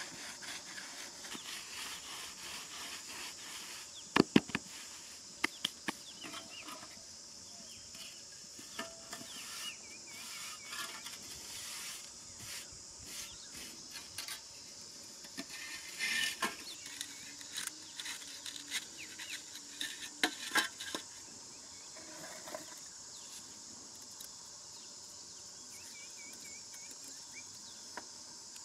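Scattered sharp knocks and light clatter of a hand saw and wooden sticks being handled on dirt ground, the loudest a pair of knocks about four seconds in. Under it runs a steady high insect drone.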